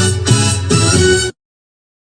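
Background music with a steady beat that cuts off suddenly about a second in, leaving silence.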